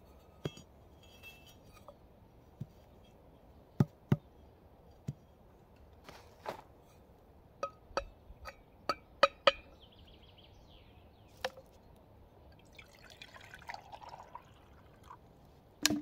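Camp dishes and utensils being handled for a meal: a string of sharp clicks and knocks at irregular intervals, some with a short ring, the loudest about four and nine seconds in and one more at the very end.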